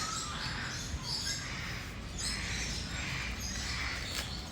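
Parrots squawking, a string of short rough calls.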